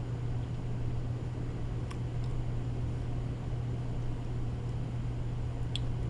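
A steady low hum under an even hiss, with two faint ticks, one about two seconds in and one near the end.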